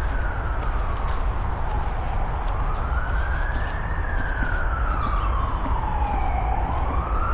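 An emergency-vehicle siren wailing, its single tone rising and falling slowly and peaking about every four seconds, over a steady low rumble.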